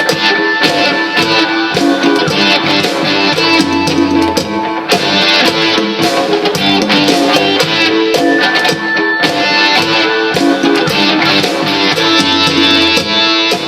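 Improvised guitar music played over a repeating looped backing with drums, the pattern coming round about every eight seconds.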